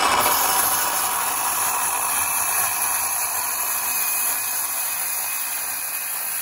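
Milwaukee M18 cordless circular saw running steadily under load as it rips lengthwise through a wooden bottom plate, the blade whirring and rasping through the wood.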